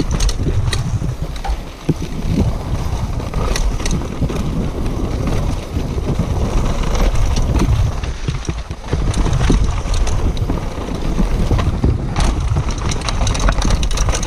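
Downhill mountain bike ridden fast on a dirt trail: a constant rumble of wind buffeting the action camera's microphone, with the tyres on the dirt and frequent sharp clicks and rattles from the bike over the bumps.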